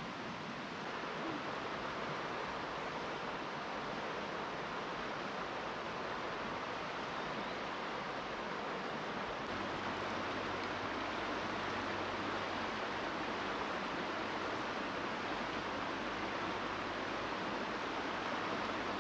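Steady rushing of a fast-flowing river. The sound shifts slightly about halfway through, where a faint low hum joins it.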